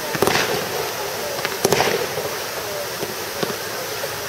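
Fireworks display: aerial shells bursting with a few spaced sharp bangs, the loudest about a second and a half in, over a steady background noise.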